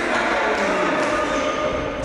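Reverberant sports-hall noise of an indoor futsal game in play, with players' voices calling out over the general din.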